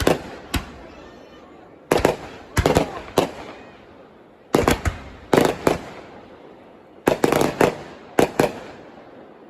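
Fireworks bursting in three quick clusters of sharp bangs about two and a half seconds apart, each cluster trailing off into a fading rumbling echo.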